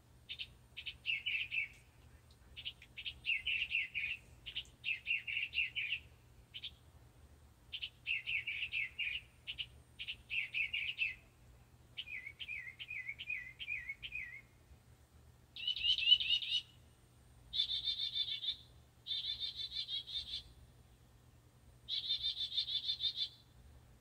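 Northern mockingbird singing a long string of varied phrases. Each phrase is a quick run of the same note repeated several times, with short pauses between phrases. About halfway through the song slows to a series of down-slurred notes, then switches to higher, buzzier phrases.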